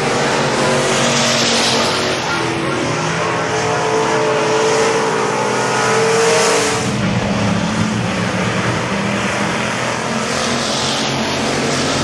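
Stock car engines racing on a dirt oval, several cars revving and running flat out together. One car passes close about six seconds in, and the engine note drops lower after it goes by.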